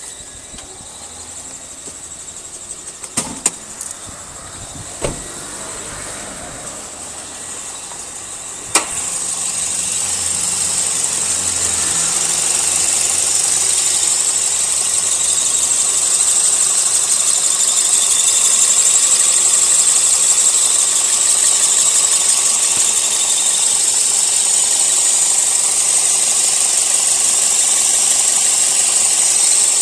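Toyota Vios engine drive belt squealing: after a few sharp clicks, a loud high-pitched shriek starts about nine seconds in, grows louder over several seconds and then holds steady over the running engine. The squeal is the sign of a slipping belt.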